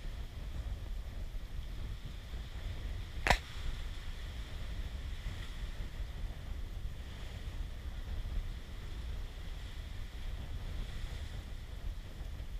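Wind rumbling on the microphone, with one sharp click a little over three seconds in.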